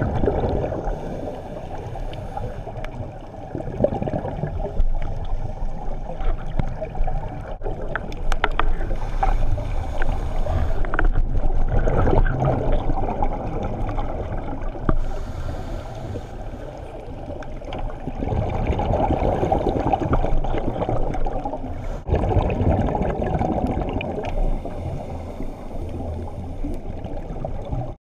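Muffled underwater sound picked up through an action camera's waterproof housing: scuba regulator exhaust bubbles gurgling in irregular swells, with scattered clicks and knocks.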